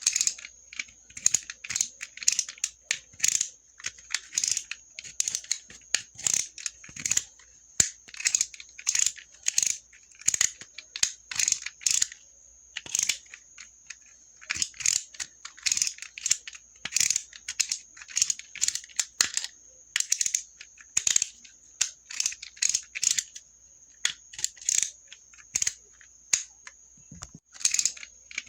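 Utility knife (box cutter) clicking: quick runs of short, sharp ratcheting clicks and scrapes, over and over with brief pauses, over a faint steady high-pitched tone.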